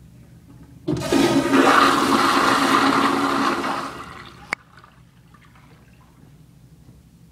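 American Standard Madera flushometer toilet bowl flushing: a sudden rush of water starts about a second in and holds strong for about three seconds. It then tapers off and ends with a sharp click.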